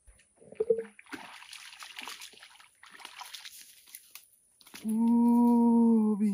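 Water splashing and sloshing from a hooked fish being pulled out of a lagoon, followed near the end by a man's long, drawn-out exclamation.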